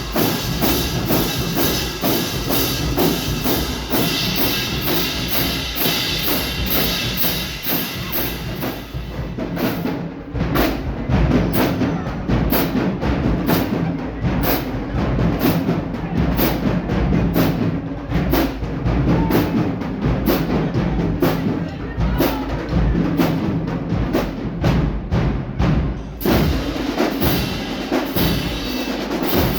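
An alumni marching band plays with a steady, loud drum beat under the horns. About nine seconds in the sound thins to mostly drums, and it fills out again near the end.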